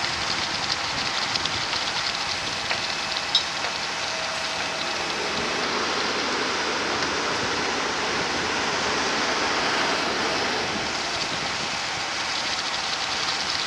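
Small concrete pump running steadily while pumping concrete fed from a self-loading transit mixer: an even rushing noise, with a few faint clicks in the first few seconds.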